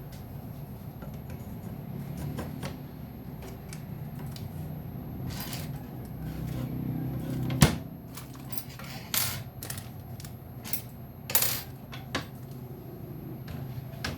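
Small hard parts clicking and clinking while handled during jig assembly, with one sharp knock a little past halfway, over a steady low hum.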